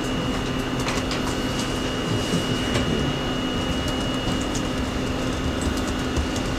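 Steady hum of room noise in a seminar room, with a constant low tone and a faint high whine, typical of a projector fan or air conditioning. A few faint light clicks come through.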